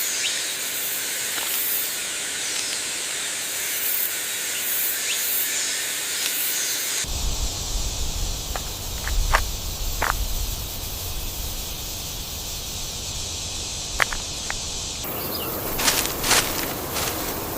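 Outdoor nature ambience: a steady hiss of background noise with a few short chirps or clicks over it. The background changes abruptly twice, as if pieced together from separate recordings.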